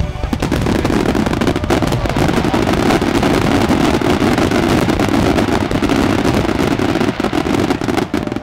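Starmine fireworks barrage: many shells bursting in rapid, overlapping succession with crackle, loud and dense throughout, then stopping abruptly at the very end.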